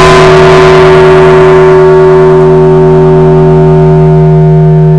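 Large bronze church bell ringing on after a single strike, very loud from right beside it. Its deep hum and several higher tones sound together. The upper tones die away over the first couple of seconds while the low hum holds steady.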